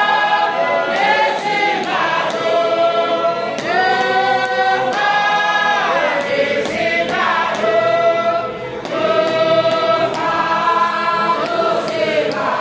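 A large women's choir singing a hymn together, holding long notes in phrases with brief breaks between them.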